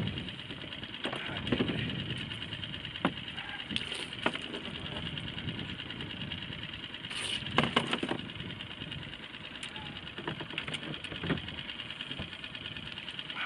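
A boat engine idling steadily, a fast even mechanical patter, with scattered knocks and clicks from gear being handled on deck.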